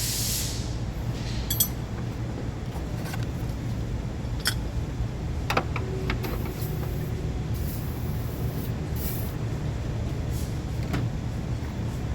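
Ford Taurus V6 engine running steadily with a low hum, with a few sharp clicks and knocks of work on the engine.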